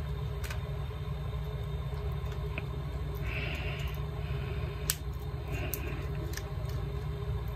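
A thin steel pry tool scraping along the seam of a smartphone's plastic frame as it is levered open, in two short scratches with a few light clicks, over a steady low background hum.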